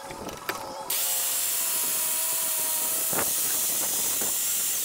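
A Porter-Cable corded circular saw starts about a second in and cuts through a wooden beam, running steadily for about four seconds.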